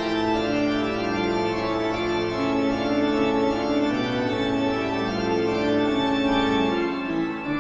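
Spooky organ music: slow, held chords over a sustained low bass note that drops out near the end.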